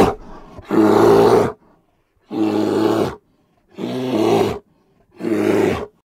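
Sun bear giving a series of loud, deep calls: four calls, each just under a second long, about one every one and a half seconds.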